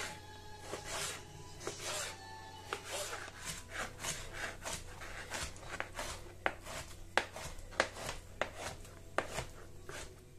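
Kitchen knife cutting raw reineta fillet on a plastic cutting board: rasping strokes of the blade through the flesh, then sharp taps of the blade on the board as the fish is cut into cubes, roughly one or two a second in the second half.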